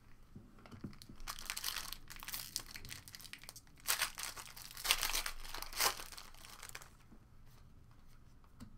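A foil trading-card pack of 2013-14 Contenders Hockey being torn open and its wrapper crinkled. The crackling begins about a second in, comes in three louder tears around the middle, and dies down near the end.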